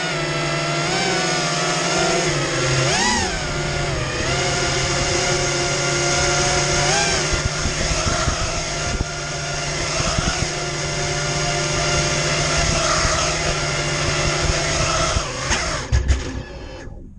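Martian II FPV racing quadcopter's motors and propellers whining in a steady multi-tone drone, the pitch swelling and dipping with throttle a few times. Near the end there is a knock as it sets down on the asphalt, and the motors then cut off abruptly.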